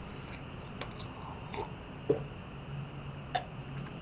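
A person drinking milk from a glass: quiet gulps and swallows with a few soft mouth clicks.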